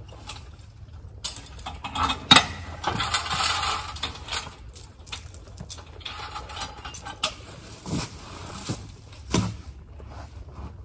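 Metal clanking and creaking from a horse-drawn log arch as its chain and lift are worked by hand to hook up a log, with several sharp knocks in the second half.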